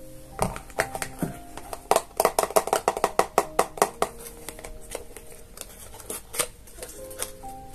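Hands handling a cardboard smartwatch box, fingernails tapping and scraping on the card in a quick run of sharp clicks, busiest and loudest in the middle and sparser near the end.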